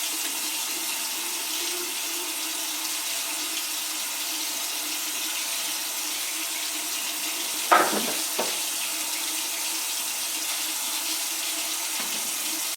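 Bathroom sink tap running steadily, with two brief knocks about eight seconds in.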